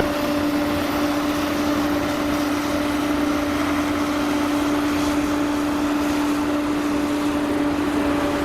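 A machine running steadily: a constant hum over a broad, even rumbling noise.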